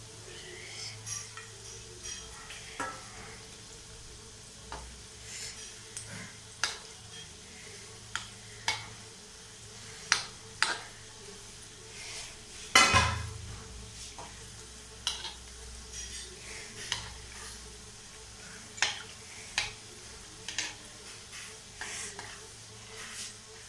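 Gulab jamun frying in hot oil in a metal kadai, the oil sizzling steadily, while a steel spoon bastes and turns them, clinking and scraping against the pan at irregular intervals. The loudest clank comes about halfway through.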